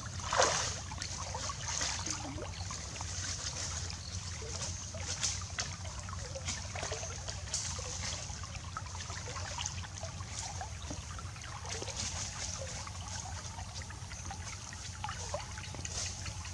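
Water splashing about half a second in as a person wades out of a shallow stream, then footsteps rustling and crunching through dry leaf litter, with many small irregular clicks, over the steady trickle of the stream.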